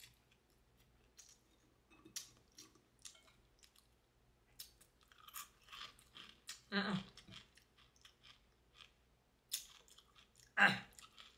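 Close-up chewing of crispy fried chicken and rice: scattered small crunches and wet mouth clicks. Two louder mouth sounds come, one a little past the middle and one near the end.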